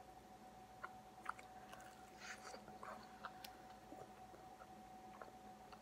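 Faint close-up chewing of a burrito with a crispy, oven-baked tortilla: scattered soft mouth clicks and small crunches, over a thin steady whine in the background.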